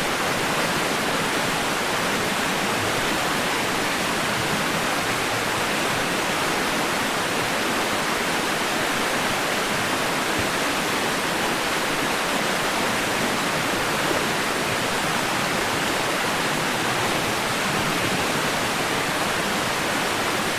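Continuous white noise played as a baby sleep aid: a steady, even hiss that never changes.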